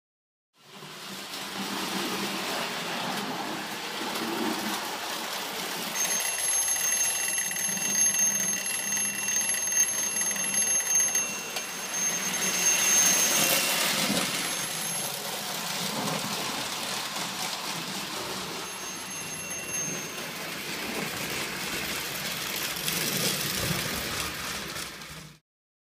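Lionel O-gauge electric model train running on tinplate track: a steady rumbling clatter of wheels and motor.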